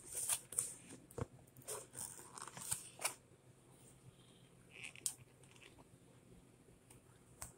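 Cardboard toy box and plastic packaging handled by hand: scattered short clicks and rustles as the figure is moved about in its box.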